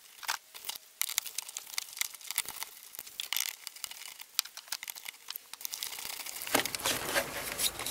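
Small quick clicks and rustling of hands working the plastic clips, connector and hose clamp on an engine's air intake duct to free a mass airflow sensor. The handling gets louder and busier about six and a half seconds in.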